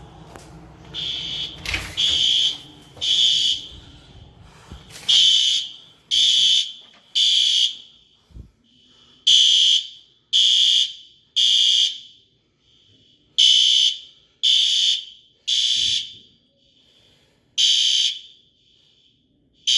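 Building fire alarm sounding the temporal code-3 evacuation signal: groups of three high-pitched beeps about a second apart, each group followed by a pause, repeating, with a fainter alarm tone carrying on between groups. A knock about two seconds in.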